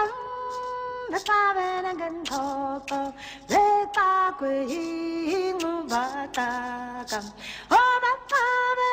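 Background music: a woman singing a song in long held notes that step up and down in pitch.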